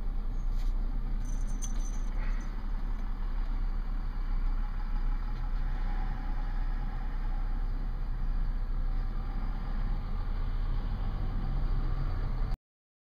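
Steady low rumble of wind on the microphone and light rattling from a bicycle being ridden over pavement. It cuts off suddenly near the end.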